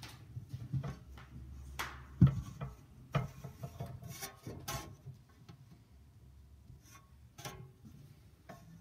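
Footsteps and wooden knocks as a large wooden cross is carried and stood on the floor against a wall, with the loudest knock about two seconds in and handling noise around it.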